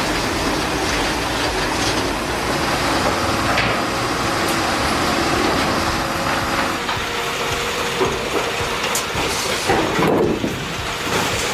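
Heavy machinery running steadily: engine noise with mechanical clatter.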